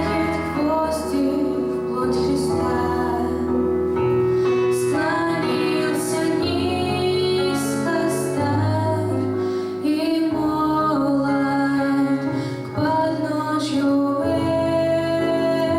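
Female singing of a Russian song, with sustained sung notes over a steady instrumental accompaniment and a moving bass line.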